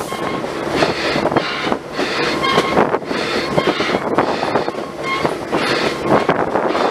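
Diesel-hauled train running along the track: a steady rumble with wheels clattering on the rails and brief high squeals from the wheels now and then.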